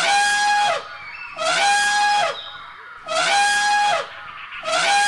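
Elephant trumpeting: the same held call repeated four times, about a second and a half apart.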